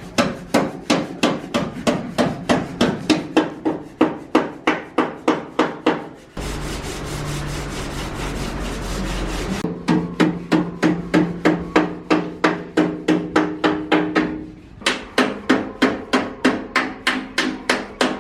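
Hammer tapping the sheet metal of a car body panel in quick, even strokes, about three a second, each stroke ringing, the panel-beating of a dent repair. About six seconds in the tapping stops for a few seconds of steady hissing noise with a low hum, then resumes, with a short break near the end.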